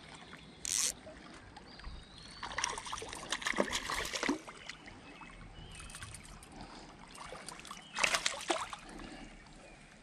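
Splashing of a small hooked walleye at the river's surface as it is reeled in and lifted out, in short bursts about half a second in, around three to four seconds in and again near eight seconds, over a faint trickle of moving water.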